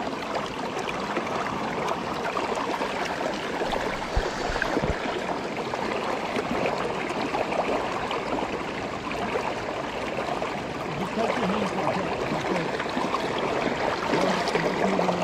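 Flowing water rushing steadily, with two brief low bumps about four to five seconds in.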